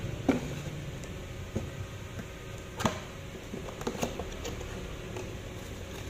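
Cardboard box being handled and opened: scattered light taps and knocks, the sharpest about a third of a second in and again near the middle, over a low steady hum.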